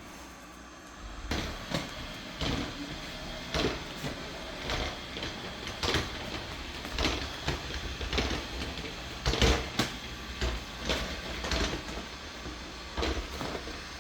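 Robot vacuum running as it drives back to its dock, with a low steady hum and irregular knocks and clacks about once a second.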